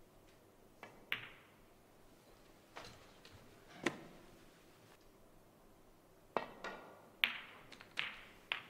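Sharp clicks of snooker balls and cue during play: the cue tip striking the cue ball, the cue ball knocking the blue into a pocket, then a further run of clicks later on.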